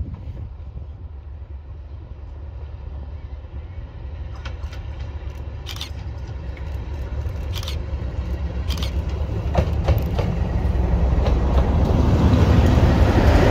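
Class 37 diesel locomotive 37109 approaching, the low sound of its English Electric engine growing steadily louder, with a series of sharp clicks in the middle.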